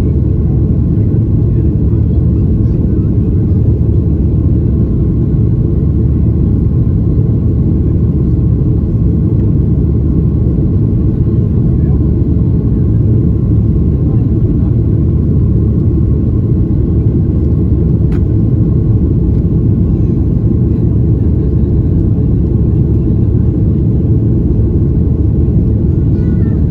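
Steady, loud, low cabin roar of a Boeing 737-800 climbing out after take-off: its CFM56-7B engines at climb thrust and air rushing over the fuselage. There is one faint click partway through.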